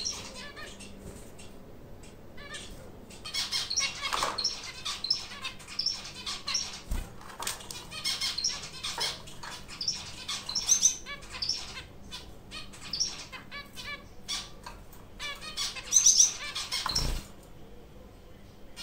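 Zebra finches calling with short, repeated nasal beeps in clusters, mixed with wing flutters and light clicks as the birds move about the cage.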